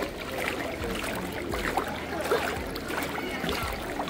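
Water splashing and trickling at an outdoor hot spring pool, with scattered distant voices and short high calls mixed through it.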